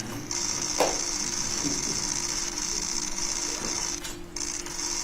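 Press photographers' camera shutters firing in rapid continuous bursts, a dense high-pitched clicking chatter with brief pauses. One louder click comes about a second in.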